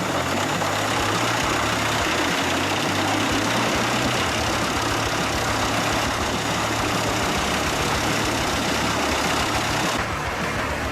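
A wood chipper running steadily: an engine hum under a dense, even rushing noise, which drops in level and loses its highs shortly before the end.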